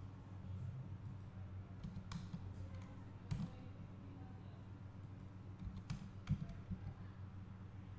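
Scattered clicks of a computer mouse and keyboard keys, a handful over several seconds, the loudest about three seconds in and just after six seconds, over a low steady hum.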